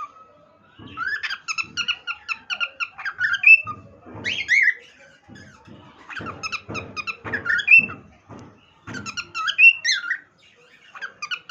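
Cockatiel whistling: several quick phrases of short, chirpy whistled notes, many ending in a rising glide, with brief pauses between them.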